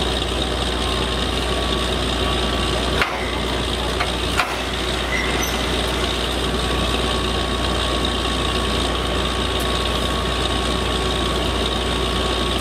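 Truck-mounted borewell drilling rig and its air compressor running steadily during drilling, a loud, even machine noise with a deep hum. Two sharp knocks sound about three and four and a half seconds in.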